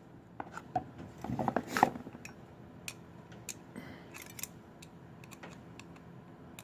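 Scattered small clicks and taps of metal parts and hand tools being handled while a replacement jump-starter battery clamp is taken apart, with a busier run of clicks about a second and a half in.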